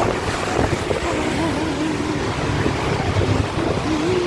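City traffic on a rain-wet road: a steady hiss of tyres on wet asphalt over a low engine rumble. A faint wavering tone comes and goes over it.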